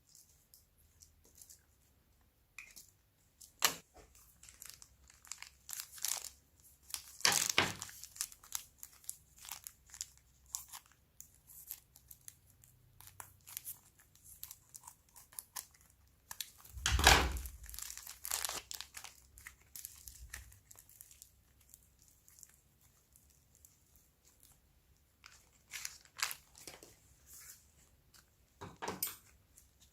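Slime being squished, stretched and folded by hand: irregular sticky pops, crackles and squelches, with the loudest squelches about a quarter of the way in and just past halfway.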